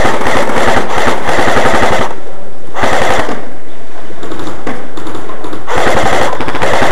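Airsoft guns firing full-auto in rapid rattling bursts: one long burst of about two seconds, short bursts in the middle, and another of about a second near the end.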